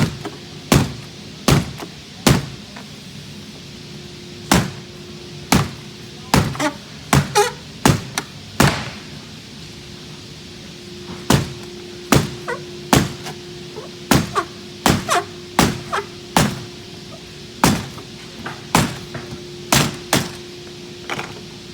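Rubber mallet striking a beveled polycarbonate wedge to drive a tightly seated trim piece out of a door panel: repeated knocks at about one a second, with a pause of a couple of seconds about halfway through. A faint steady hum runs underneath.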